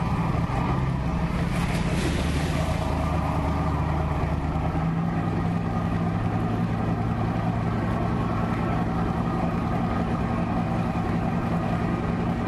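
Motorboat engine running steadily as the boat travels: a low, even engine hum under a constant rushing noise.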